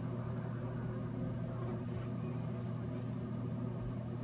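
Steady low hum of a small electric motor running, with a constant drone and no change in level.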